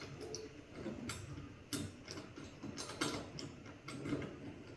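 A screw being started by hand into a wardrobe's metal wall-attachment fitting: irregular small metallic clicks and scrapes, a few a second, with handling noise.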